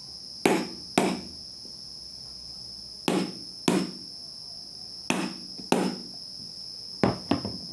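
A stone knocking on the hard shell of a massala fruit (Strychnos spinosa) to crack it open: sharp taps in pairs every couple of seconds, about eight in all.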